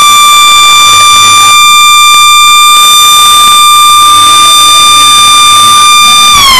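A siren holding one loud, steady high tone, which starts falling in pitch just before the end as it winds down.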